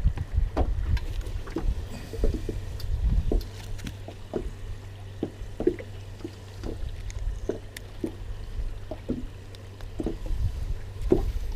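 Scattered light taps and knocks of a crappie being handled and laid on a ruler aboard an aluminum boat, over a low steady rumble.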